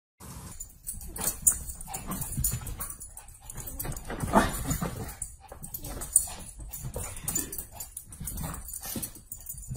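A puppy whimpering and yipping, mixed with irregular sharp knocks.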